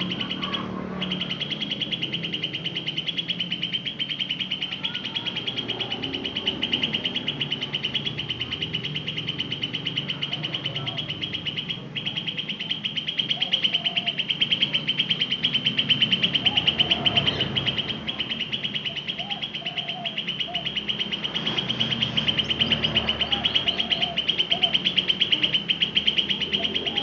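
Green leafbird (cucak ijo) singing its 'ngetrok' song: one high note rattled off very rapidly and evenly, without a break.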